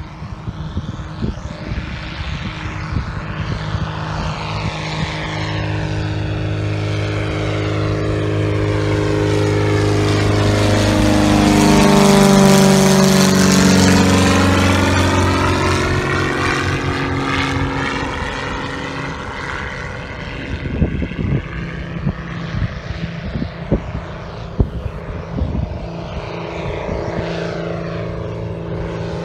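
Sabre Wing light airplane with a Corvair six-cylinder conversion engine flying past: the engine-and-propeller drone builds, is loudest about twelve seconds in, and drops in pitch as the plane passes, then carries on more quietly.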